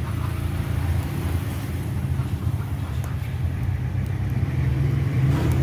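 Steady low engine-like hum, even and unbroken, running under the scene.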